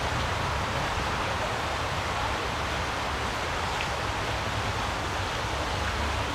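Steady rushing of a mountain brook's flowing water, an even hiss with no breaks.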